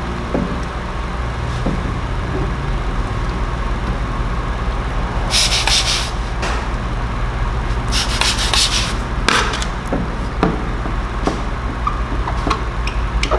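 Squeegee strokes pressing paint protection film down onto a wet headlight: two longer scraping rubs in the middle, with scattered small clicks and a steady low hum underneath.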